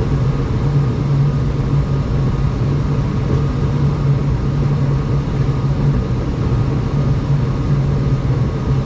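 Rheem gas furnace firing: a steady low hum and rumble of burners and fans, with the gas pressure being turned down from a reading of 3.5.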